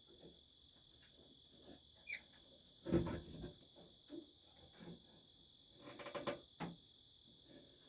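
Light knocks and a quick run of small clicks from metal door-handle parts being handled and fitted onto the latch shaft, over a steady high-pitched ringing tone.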